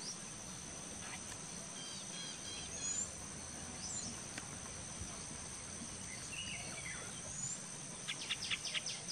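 Outdoor ambience of a steady high-pitched insect drone with a few short, scattered bird chirps, and a rapid run of sharp chirps near the end.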